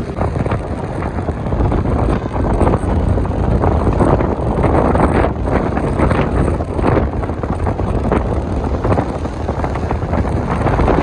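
Wind buffeting the microphone of a moving motor scooter, with the scooter running underneath; the noise rises and falls unevenly throughout.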